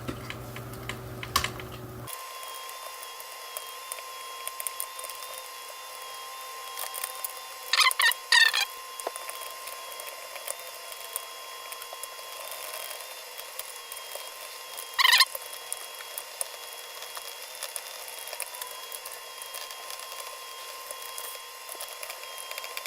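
Small screwdriver and plastic-part handling sounds: light ticks and scrapes while screws are worked out of a toy drone's plastic shell, with two louder clatters, one about eight seconds in and one about fifteen seconds in. A thin steady high hum runs underneath.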